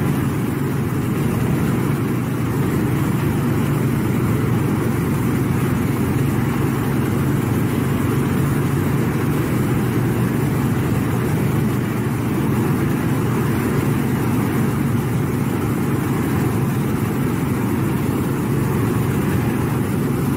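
Tractor engine running steadily under a constant rushing noise as it pulls a flame-weeding bar of burner jets across the field.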